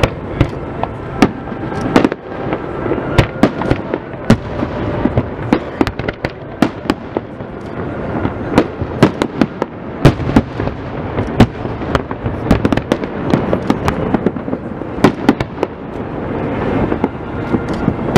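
Aerial fireworks display: a rapid, irregular series of sharp bangs and cracks from bursting shells, several a second, over continuous background noise.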